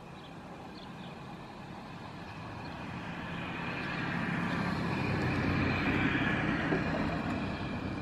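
A vehicle passing by, growing steadily louder to its loudest about five to six seconds in and then fading.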